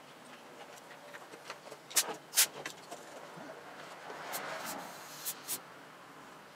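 Hands working on a machine: several sharp clicks and knocks, the loudest a pair about two seconds in, with a short hiss about four seconds in. No engine is running.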